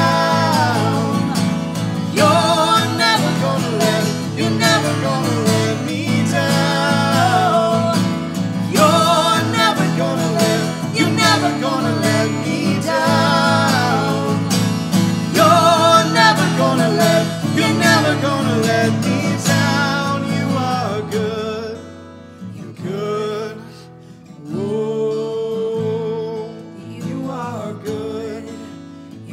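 Acoustic guitar strummed while a man and a woman sing a worship song together. About twenty seconds in the song drops to a quieter, sparser passage, the woman singing softly over lighter guitar.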